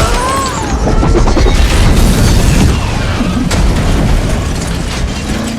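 Film action sound mix: heavy booms and crashing impacts over a music score, easing off near the end.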